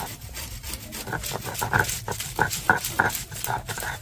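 Stone muller rubbed back and forth on a flat grinding stone (shil-nora), crushing spinach leaves into a paste. A rhythmic scraping of about three strokes a second becomes clear about a second in.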